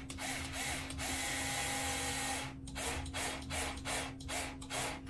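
Screws being driven to fasten a Losi 5T RC truck body: a steady whirr for about a second and a half, then a run of ratcheting clicks, about three a second.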